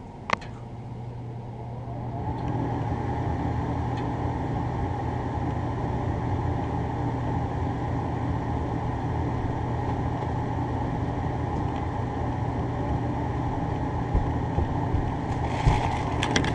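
York gas furnace motor spinning up over about two seconds, then running with a steady hum, with a few light clicks and knocks near the end.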